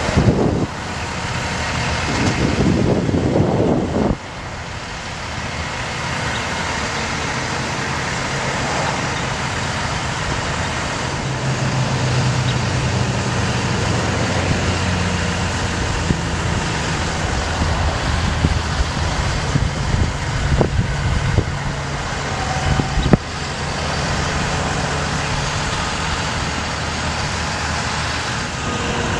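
A bucket truck's diesel engine running steadily while it powers the hydraulic aerial boom as the boom and bucket move. There is a louder stretch a few seconds in and a few sharp knocks past the middle.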